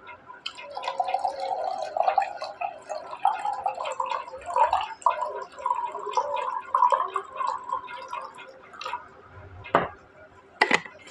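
Water glugging and splashing from a plastic bottle into a glass of whisky for about seven seconds. Near the end come two or three sharp knocks.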